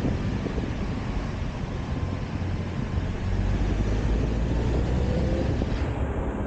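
Convertible car driving with its top down through a road tunnel: steady engine and tyre rumble with wind on the microphone, the engine pitch rising slightly about five seconds in.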